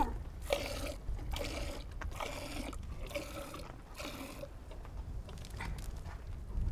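Goat being milked by hand into a metal pot: rhythmic squirts of milk hitting the pot, about one every three-quarters of a second, fading after about four and a half seconds.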